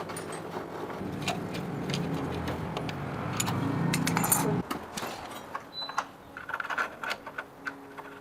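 Metallic clinks and jingling of tools and small metal parts being handled, over a low steady hum that stops abruptly about halfway through.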